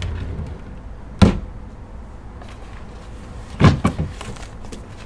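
Knocks of a storage compartment being opened and handled: one sharp knock about a second in, then a quick run of two or three knocks a little past the middle.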